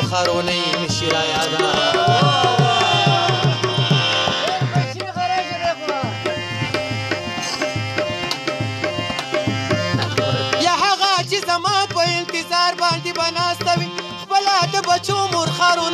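A man singing a Pashto folk song to harmonium accompaniment, with percussion beating a steady rhythm under the voice and the harmonium's held notes.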